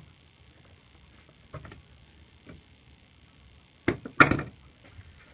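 Chainsaw side cover being pulled off and handled: a few light clicks, then a sharp clatter of plastic knocks about four seconds in.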